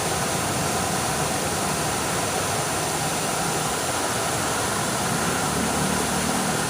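Fountain water splashing and falling continuously, a steady, even rush of water.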